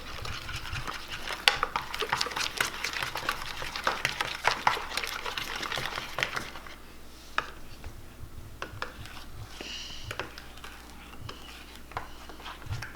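Slime being stirred in bowls, with utensils clinking and scraping against the bowls: a busy run of clicks for about six seconds, then only scattered clicks.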